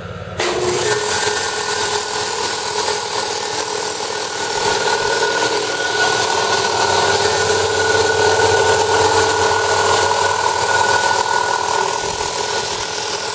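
Ingersoll Rand 3 hp 60-gallon vertical electric air compressor starting up about half a second in, then running steadily, its piston pump and motor loud and even.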